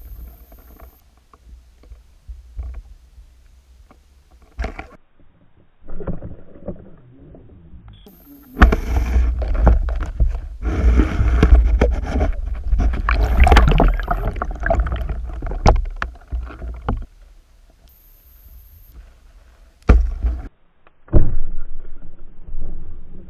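Muffled underwater rumbling, sloshing and knocking picked up through a submerged camera. It is quiet at first with a few short bumps, turns into a long loud churning stretch through the middle, and ends with two sharp bursts.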